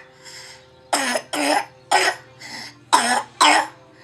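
Toddler coughing, about six coughs in a row, mostly in close pairs: his "mean old cough", a lingering illness.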